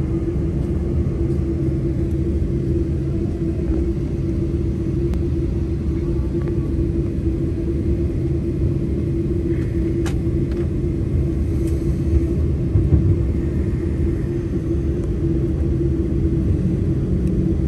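Cabin noise inside a Boeing 747-8 taxiing onto the runway: a steady low rumble of the engines and airframe with a constant hum, and a couple of faint clicks about two-thirds of the way through.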